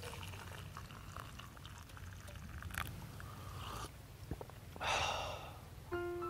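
Hot water being poured into a stainless steel camping mug, with light clinks of cookware. A short slurping sip comes about five seconds in. Near the end a few sustained musical notes begin.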